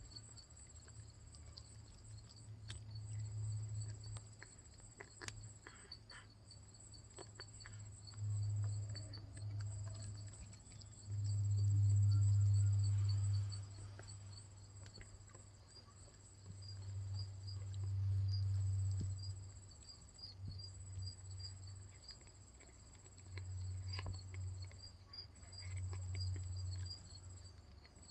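A cat chewing on its claws, making scattered faint crunchy clicks, over steady background cricket chirping. A low rumble swells and fades several times and is the loudest sound.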